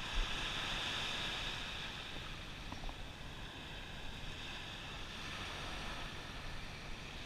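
Steady hiss of light surf washing on a sandy beach, mixed with wind on the microphone, with one soft thump just after the start.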